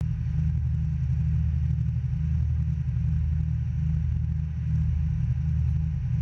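Lifeboat running at speed: a steady, muffled low rumble of engine and hull.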